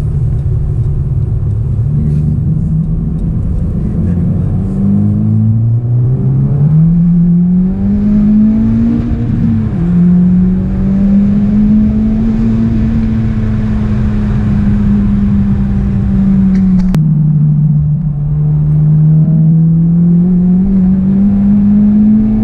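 A Honda Civic Type R FK8's turbocharged four-cylinder engine and 3-inch exhaust drone from inside the cabin as the car accelerates along the road, with tyre and road noise underneath. The pitch climbs, drops suddenly at an upshift about five seconds in, holds steady at a cruise, drops at another upshift near seventeen seconds, then climbs again.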